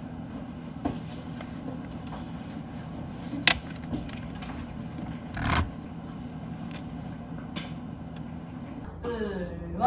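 A paper exam booklet being handled and its pages turned on a desk: a few brief rustles and taps over a steady low room hum.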